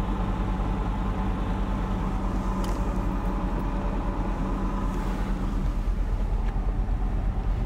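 Lexus LX470's 4.7-litre V8 running steadily while the truck drives a rough desert trail, with a few faint knocks and rattles.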